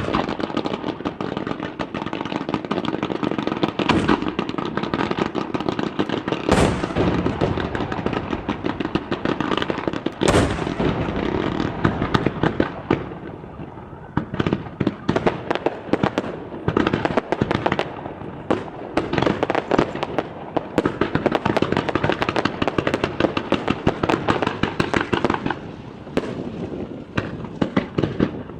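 Fireworks display: a dense run of bursts and crackling, with big booms about 4, 6.5 and 10 seconds in, then many rapid cracks and pops in the second half.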